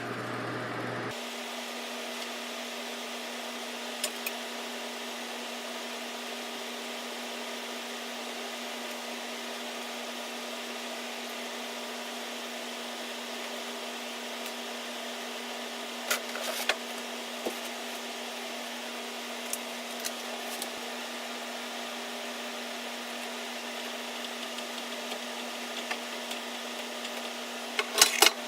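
Steady machine hum with an even hiss, broken by a few small clicks and knocks, with a louder cluster of clicks near the end.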